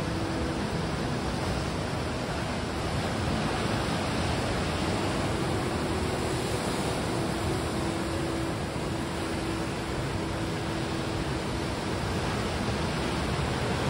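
A steady, even rushing noise with no breaks or distinct events.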